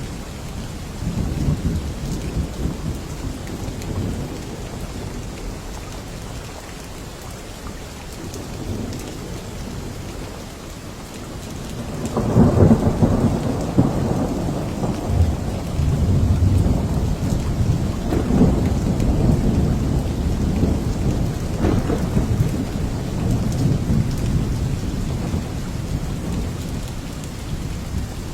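Steady rain with rolling thunder: a low rumble swells up about halfway through and rolls on for several seconds, followed by smaller rumbles.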